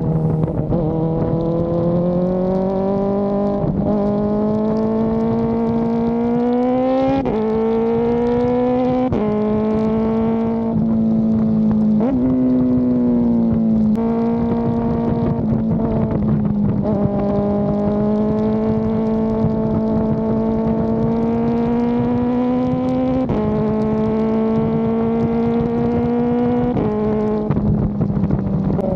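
Kawasaki ZX-4RR's 399 cc inline-four engine under hard acceleration on track: the revs climb steadily and drop sharply at each upshift, several times, with stretches where the revs fall as the bike slows and shifts down, about twelve seconds in and near the end.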